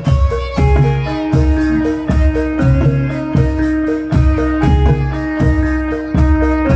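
Live traditional Javanese performance music: a low drum beating steadily, about two to three strokes a second, under ringing pitched notes, one held longer in the middle.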